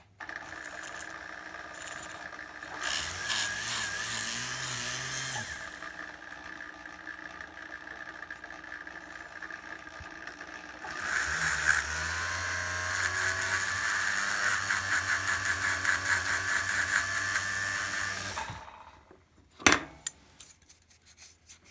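Foot-pedal flex-shaft rotary tool with a small ball burr running, grinding the hard rubber bite plate of a metal saxophone mouthpiece. It grinds harder briefly about three seconds in, then again for a longer stretch from about eleven seconds, when the motor speeds up, and stops near the end, followed by a few sharp knocks.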